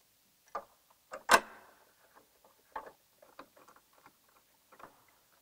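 Scattered light clicks and taps of plastic fairing parts and a screwdriver being handled as a winglet is fastened to a motorcycle's front cowling, with one sharp knock about a second and a half in.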